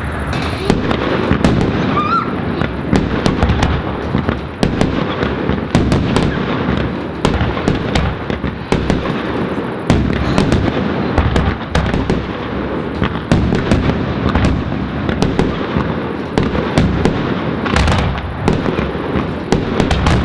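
Firework finale: aerial shells bursting in rapid succession, a continuous dense rumble packed with sharp cracks. A brief rising whistle about two seconds in.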